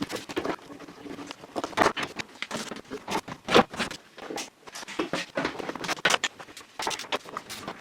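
A rapid, irregular run of clicks, taps and scrapes in a small room.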